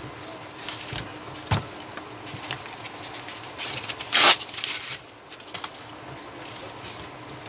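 Handling noise from a disassembled Epson TM-U220PD dot-matrix receipt printer being reassembled: a few clicks and knocks of its metal and plastic parts, and a loud brief rustle of paper about four seconds in.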